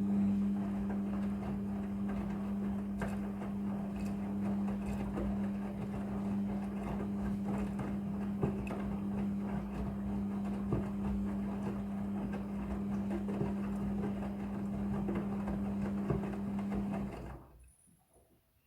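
A machine running with a steady, even-pitched hum and scattered clicks, stopping about seventeen seconds in.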